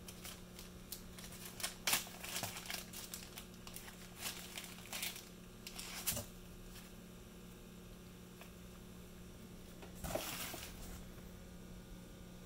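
Clear plastic bag crinkling as a stack of cardboard coasters is pulled out of it, in scattered crackles through the first half and another longer rustle about ten seconds in. A steady low hum runs underneath.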